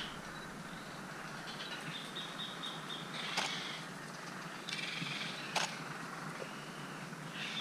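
Island forest ambience over a steady hiss: a small bird gives a quick run of high, evenly repeated chirps, and there are two sharp crackles, one about a third of the way in and one past the middle.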